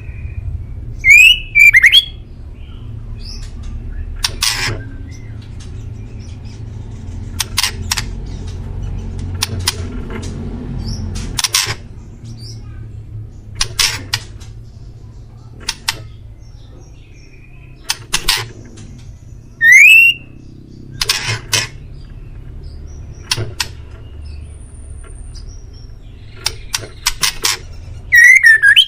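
Male white-rumped shama (murai batu) calling: a few loud upward-sweeping whistles near the start, about 20 seconds in and near the end, between many short, sharp clicking notes, over a low steady rumble.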